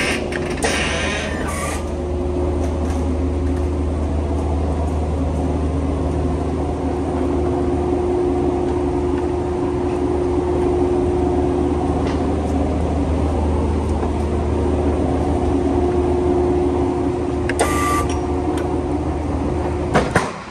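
Electric pallet jack driving a loaded pallet: a steady motor hum over a low drone, with a couple of sharp knocks near the end.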